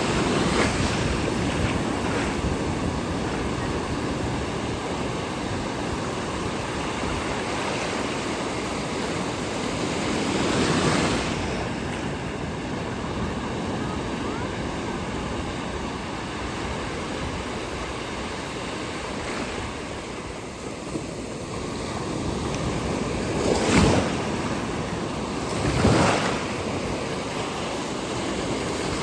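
Pacific Ocean surf: waves breaking and washing in as a continuous rush, swelling about ten seconds in and with two sharper crashes near the end, with some wind on the microphone.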